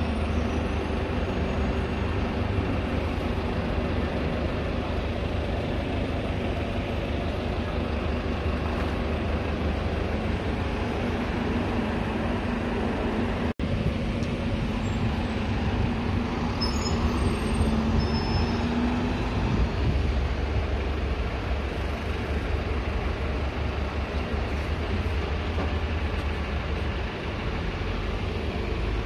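Buses running at a bus station: a steady engine rumble with a low hum. It drops out for an instant about halfway through.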